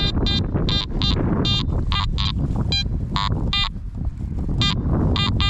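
Garrett AT Max metal detector giving about a dozen short, high-pitched beeps in quick succession as its coil sweeps over the ground: high tones that the detectorist reads as a dense patch of buried lead bullets. Heavy wind noise on the microphone runs underneath.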